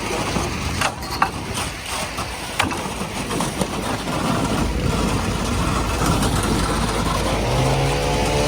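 Heavy engine idling steadily, with a few sharp knocks about one and two and a half seconds in. A pitched sound with several tones comes in near the end.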